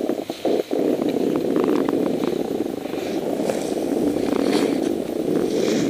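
Snowboard sliding over packed snow, a steady scraping rush mixed with wind on the camera's microphone, which dips briefly in the first second.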